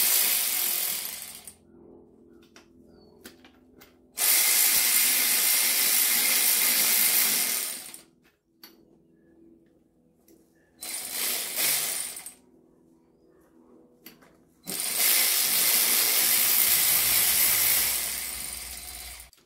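Power ratchet driving the intake manifold bolts down, running in four bursts of up to about four seconds each, with quiet pauses and a few light clicks between.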